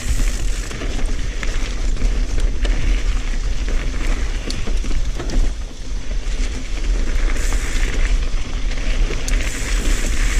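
Mountain bike rolling along a dirt trail: wind buffeting the microphone over tyre noise, with scattered sharp clicks and rattles from the bike.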